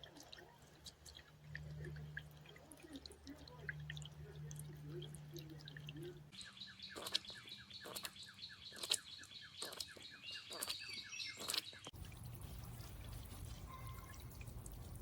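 Faint trickling and dripping of a small solar fountain pump's spray falling back into a bird bath. Partway through, a bird calls in a rapid run of short chirps.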